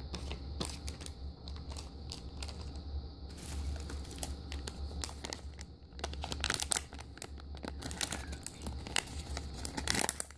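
Plastic blind-bag packet crinkling and crackling as it is handled and worked open by hand. The crackles come thicker after about three seconds.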